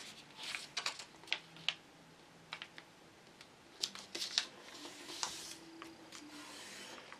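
A sheet of printer paper being folded and creased by hand on a wooden tabletop: scattered short rustles and small clicks as the fingers press the fold flat.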